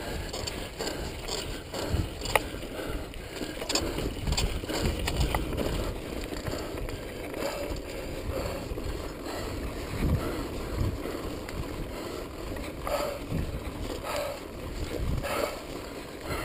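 Wind buffeting a helmet-mounted GoPro HD's microphone on a fast downhill mountain-bike run, mixed with tyres on the dirt trail and the rattles and knocks of a Kona Stinky Dee-lux full-suspension bike over rough ground. A sharp knock stands out about two seconds in.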